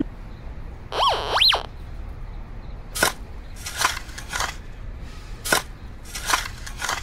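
Metal detector signal: two quick tones about a second in, each rising and then falling in pitch. Then short, noisy shovel strokes digging into dirt, one every half second to second.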